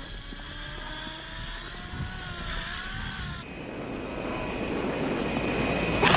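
A small flying camera drone's motor whine, several pitches wavering together. It cuts off abruptly about three and a half seconds in, leaving a steady hiss as the camera loses its signal.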